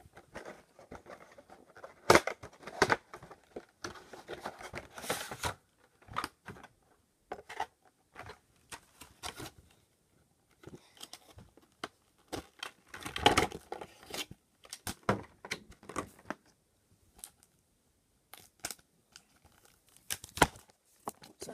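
Packaging of a Pokémon TCG Garchomp-EX collection box being torn open and pulled apart: irregular rips, plastic crinkles and clicks. The loudest come about two seconds in, around thirteen seconds, and shortly before the end.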